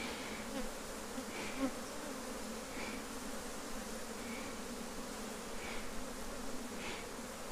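Honeybees buzzing steadily around a frame lifted from the hive, with a bellows smoker giving short soft puffs about every second and a half.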